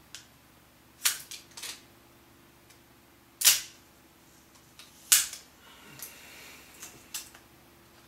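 Apple Magic Mouse's plastic packaging being pried open: a few sharp plastic snaps and clicks, the loudest about three and a half seconds in, others about a second in and about five seconds in, with a faint rustle after the last one.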